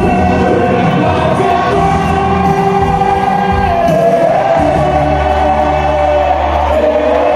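Live vallenato band music with a group of singers singing together, holding long notes over the band.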